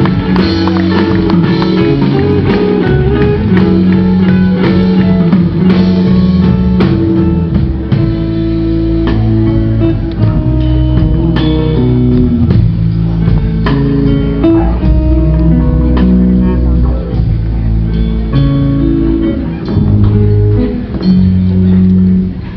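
Live rhythm-and-blues band playing a slow instrumental passage: a guitar lead with bending notes over bass and drums.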